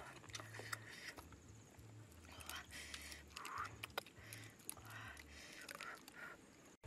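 A ladle stirring and scooping soup in a clay pot: soft, faint liquid sloshing with scattered light clicks and knocks of the ladle against the pot and the mushrooms.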